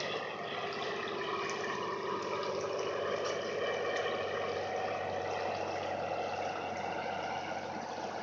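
Steady rush of a shallow mountain creek running over rocks.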